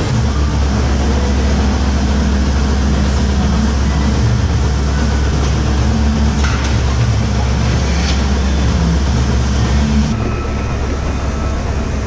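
Steady low mechanical rumble of milking parlour machinery running: the vacuum system driving the milking units.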